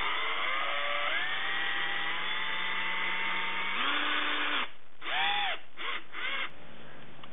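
Cordless drill with a socket bit driving a sheet-metal screw into the rubber sole of a running shoe. The motor whine rises in pitch as it spins up and runs steadily for about four seconds, climbs briefly and stops, then comes back as three or four short whirs near the end.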